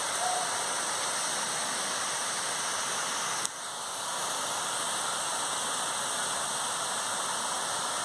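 Waterfall rushing steadily, a constant hiss of falling water, with a short click and a brief dip in level about three and a half seconds in.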